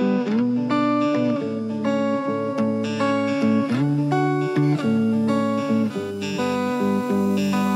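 Background music played on guitar, a steady run of picked notes and changing chords.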